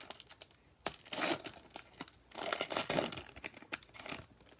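Plastic wrapper of a Prizm basketball card pack crinkling as it is torn open, in two bursts about a second and a half apart, with light clicks of handling between them.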